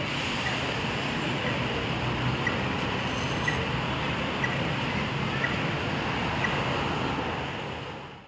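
Steady outdoor road traffic noise, with a faint tick about once a second; it fades out near the end.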